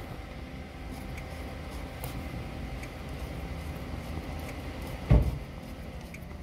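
Handling noise as the plastic oil filter cap is worked back into its housing by a gloved hand: a low rumble with faint small ticks, and one sharp knock about five seconds in.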